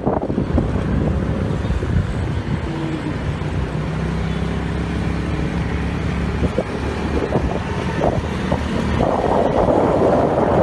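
Steady road-traffic noise, heavy in the low end, getting a little louder near the end.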